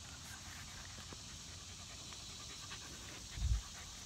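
Rat terrier panting softly and steadily, with a few small ticks. A dull low thump about three and a half seconds in is the loudest sound.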